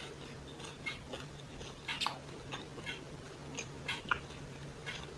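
A person chewing food close to the microphone, with soft, scattered mouth clicks.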